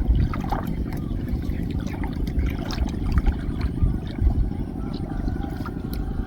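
Water splashing and trickling as a gill net is handled in flood water, over a steady low rumble.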